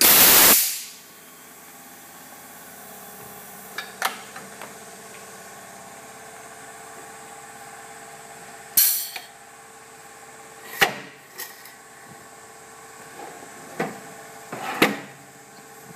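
IYASAKA SICE S419GP pneumatic tyre changer being worked through its functions: a short loud blast of air hiss at the start and another about nine seconds in as its air valves are operated, over a steady machine hum. Several sharp metal clunks and knocks come from its moving parts, the loudest near the end.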